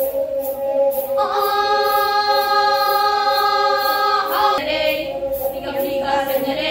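Pena, the Manipuri bowed fiddle with a coconut-shell body, played by several players as a steady drone, while women's voices sing together. Their voices hold one long note from about a second in until past the middle, then move into shorter phrases. Light jingles from the bells on the pena bows keep a steady rhythm with the bowing.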